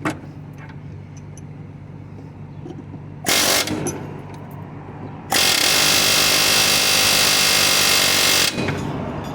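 Harbor Freight Chief medium-barrel pneumatic air hammer firing against a bushing to drive it out: a short burst about three seconds in, then a longer run of about three seconds. A steady low hum runs underneath.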